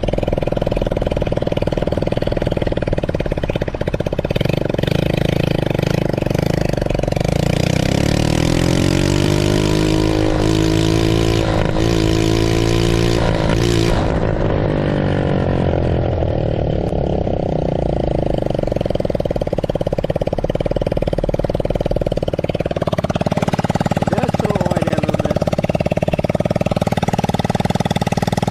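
Small ATV engine running on a test ride, revving up about eight seconds in, holding high for several seconds, then dropping back to a lower steady speed.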